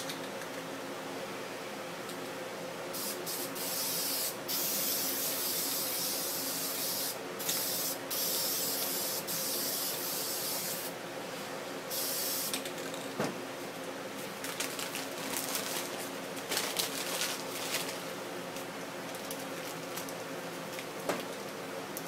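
Aerosol spray paint can spraying in a run of hissing bursts, several lasting a few seconds, then shorter puffs and a few small taps and rustles, over a steady low hum.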